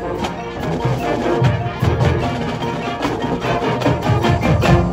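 Marching band playing its field show: winds over percussion with frequent sharp accents, the loudest hit coming near the end.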